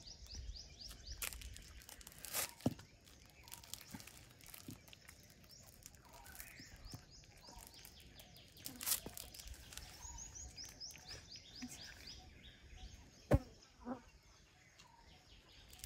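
A puppy chewing a sausage: scattered clicks and small knocks, the sharpest about 13 seconds in. A small bird sings a fast trill of short falling notes near the start and again about ten seconds in.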